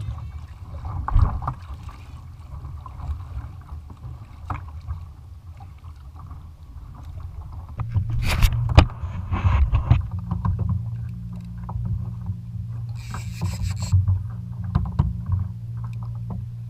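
Knocks and handling noises on a fishing kayak, with water against the hull and a low rumble; a steady low hum sets in about halfway, and there is a short hiss a little before the end.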